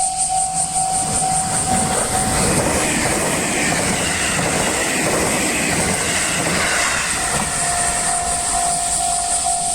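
Electronic warning bell of a Japanese railway level crossing ringing with a steady pulsing beat. About two and a half seconds in, a train passes over the crossing and drowns the bell for about four seconds, and the bell is heard plainly again near the end.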